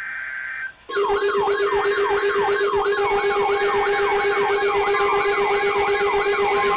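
A brief high electronic tone burst, then from about a second in a loud electronic siren: a steady low tone under a wail that sweeps up and down about three times a second. More high steady tones are layered in about halfway through.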